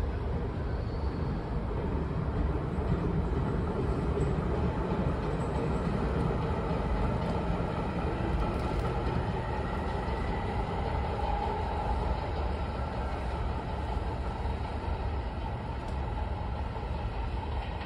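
Steady rumble of a passing train moving off through an underground station and its tunnel, with a faint hum over it.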